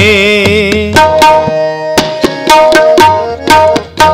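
Tabla strokes and a harmonium playing a melody in an instrumental interlude of Sikh shabad kirtan; a held, wavering sung note ends about a second in.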